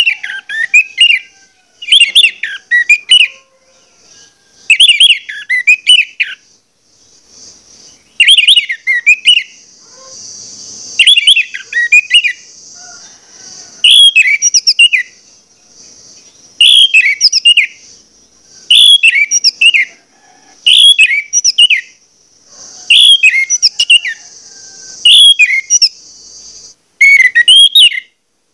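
Orange-headed thrush singing a full, insistent song: short warbled phrases, about one every two seconds, a dozen in all. A steady high hiss runs behind most of the song.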